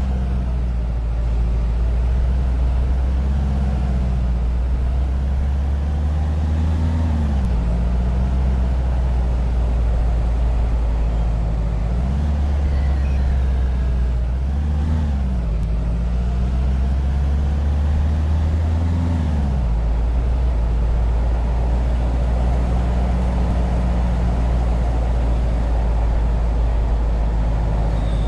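A motor vehicle's engine running steadily, its pitch rising and falling back several times as it revs and eases off.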